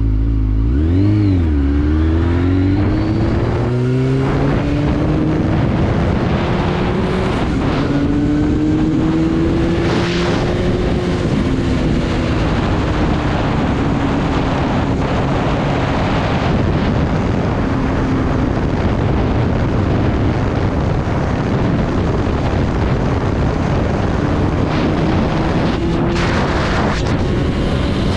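Sport motorcycle engine heard from the rider's seat over steady wind noise while riding. The revs dip and rise about a second in, climb over the next few seconds, then rise and ease gently at cruising speed.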